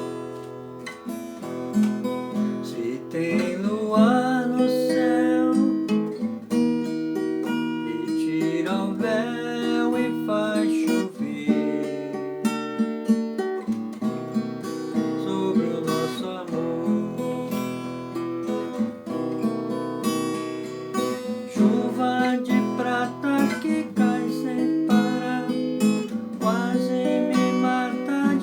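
Strummed acoustic guitar music, with a melody line that glides between notes above the chords.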